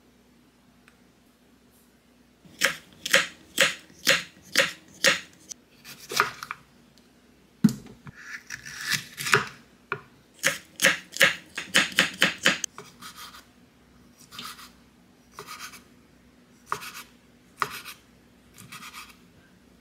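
A kitchen knife cuts a red bell pepper into strips on a wooden cutting board: a run of crisp cutting strokes, two or three a second, starting a couple of seconds in. In the last third come slower, spaced strokes of a serrated knife slicing squid.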